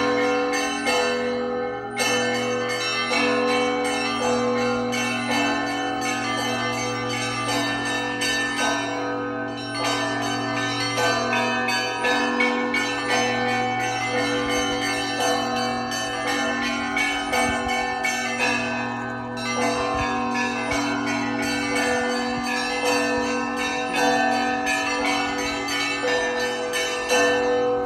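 Russian Orthodox monastery bells of the Trinity-Sergius Lavra ringing a festive peal (zvon). Smaller bells are struck over and over in an even, repeating rhythm above the long steady hum of a large bell.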